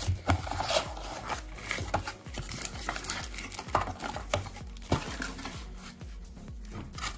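Cardboard packaging being handled: scattered knocks, scrapes and rustles as card inserts are pulled out of the box and set down, with some crinkling of bubble wrap.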